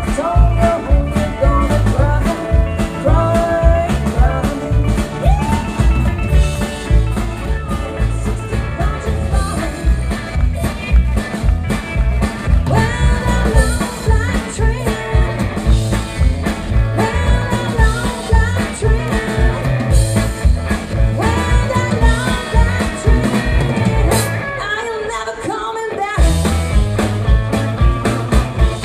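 Live rock and roll band playing: singing over acoustic and electric guitars, bass and drums with a steady beat. The bass and drums drop out for about two seconds near the end, then come back in.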